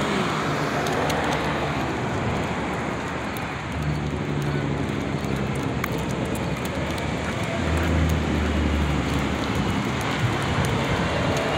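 Steady road traffic noise, with a deeper engine hum that swells twice, about four seconds in and about eight seconds in.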